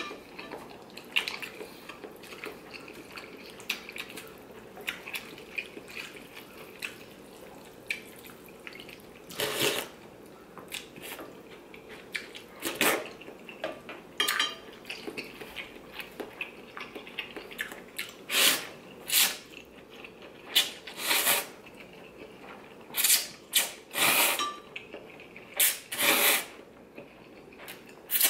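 A person slurping ramen noodles and broth: a string of short, loud slurps, coming more often toward the end, with quieter eating noises between them.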